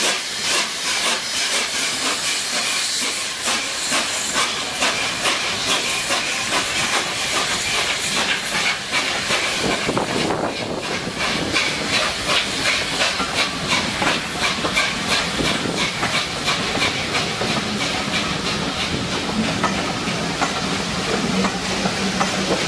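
Peppercorn A1 Pacific steam locomotive 60163 Tornado passing at walking pace, steam hissing over a steady beat of soft exhaust puffs, about two a second. From about halfway, the coaches rolling past add a low rumble of wheels on rail.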